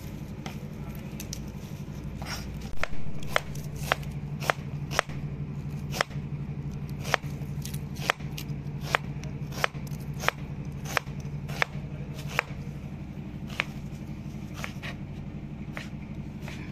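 Kitchen knife chopping a red onion on a plastic cutting board: sharp knocks of the blade against the board, about one and a half a second, thinning out near the end, the first one about three seconds in the loudest. A steady low hum runs underneath.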